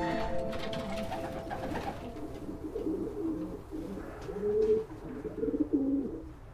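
Racing pigeons cooing, a low warbling coo repeated several times. A music cue fades out over the first couple of seconds.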